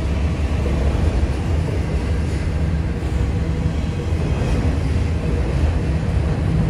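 Autorack freight cars rolling past on the rails, a steady low rumble of steel wheels on track.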